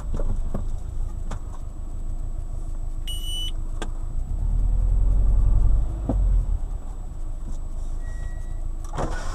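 Subaru Forester driving over bumps, its running gear rumbling, with several sharp knocks at irregular intervals from the front-right suspension, a fault not yet tracked down. A brief high tone sounds about three seconds in.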